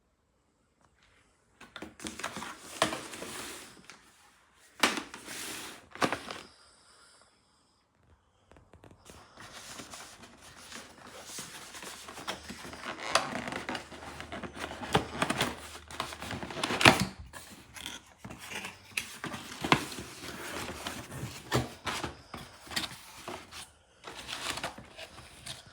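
Packaging being handled and opened: irregular rustling and tearing with sharp clicks and knocks, in short bursts separated by pauses.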